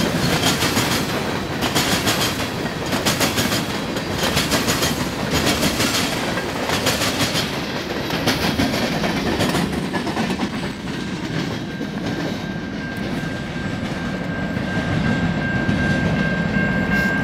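Freight train of covered hopper cars rolling past close by, its wheels clacking over rail joints in a steady rhythm about once a second. Later the clacking gives way to a smoother rumble as the cars move away, with a faint steady high tone near the end.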